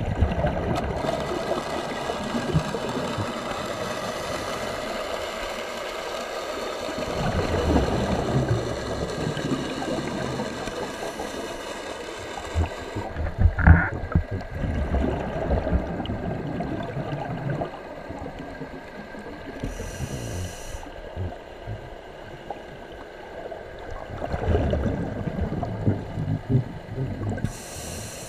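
Scuba diver breathing through a regulator underwater: exhaled bubbles rumbling and gurgling in bursts every several seconds, with one sharper loud burst about halfway through.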